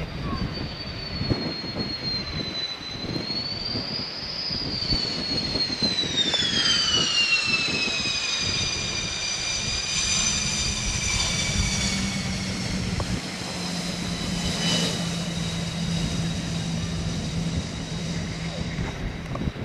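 USAF Thunderbirds F-16 fighter jet passing along the runway under engine power, a loud jet roar with a high whine that slides down in pitch as it goes by, about five to twelve seconds in.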